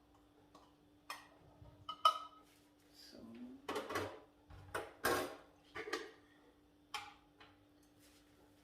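Kitchen handling sounds: a series of separate clinks, knocks and short scrapes from a spoon, jars and dishes. A faint steady hum runs underneath.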